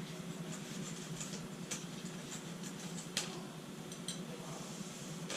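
Scattered light clicks and taps of hands working a part of a resin 3D printer loose, a sharper knock about three seconds in, over a steady low machine or room hum.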